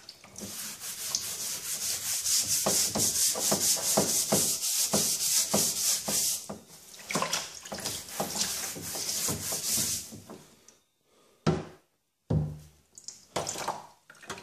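A metal scouring pad scrubbing a vinegar-soaked, rusty Disston handsaw blade in quick, rhythmic back-and-forth strokes, loosening the rust. The scrubbing stops about ten seconds in, followed by a few soft knocks.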